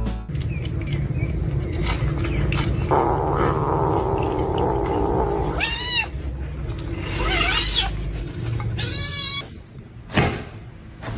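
Domestic cat meowing three times, each call a short rise and fall in pitch, the last one wavering.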